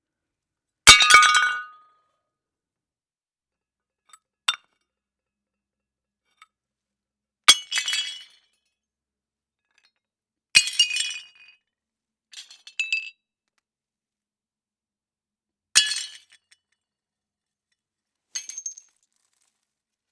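Ceramic plates smashing one at a time: a sharp crash with a short clatter of shards, four big breaks a few seconds apart, with smaller clinks of pieces between them and silence in the gaps.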